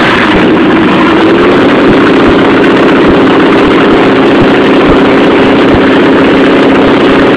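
NASCAR stock car's V8 engine idling loudly and steadily.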